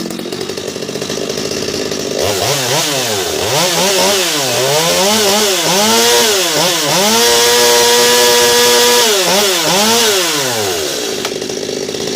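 Modified Stihl MS 250 two-stroke chainsaw, ported, with changed timing and a buckshot muffler. It idles, then is blipped through a string of quick revs. Then it is held at full throttle for about two seconds, turning about 14,400 rpm, and drops back to idle.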